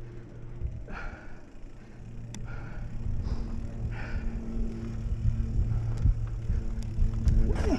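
Mountain bike rolling fast down a rocky dirt singletrack: tyres on dirt and stones and the bike rattling over the ground, with a steady low buzz underneath and scattered sharp clicks. It grows louder from about halfway as speed builds.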